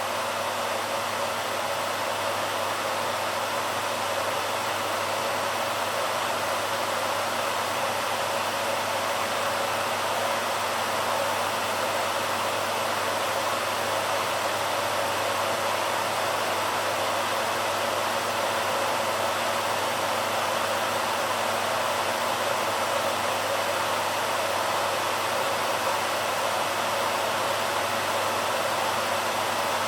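BaByliss hair dryer running steadily: an unchanging rush of air with a faint low hum underneath.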